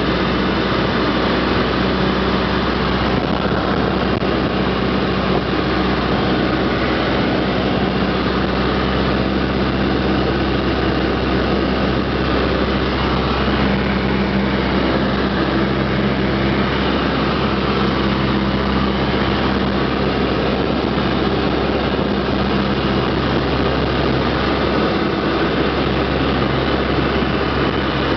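Cessna 152's four-cylinder Lycoming engine and propeller droning steadily in flight, heard from inside the cabin over a hiss of rushing air.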